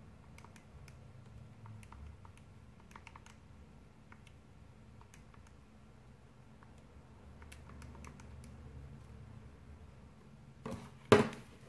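Faint, irregular clicks of calculator keys being pressed while a result is worked out. A couple of louder knocks come near the end.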